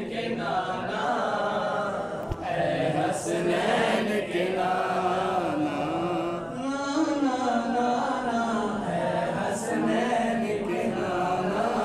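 Men chanting a naat, a devotional recitation, into a microphone with no instruments, the melody rising and falling in long held lines.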